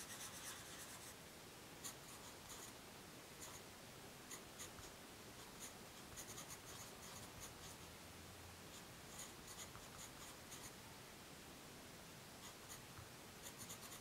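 Faint pencil scratching on paper. For about the first second a colored pencil scribbles densely, filling in a swatch. After that a graphite pencil writes in short, separate strokes, lettering a label.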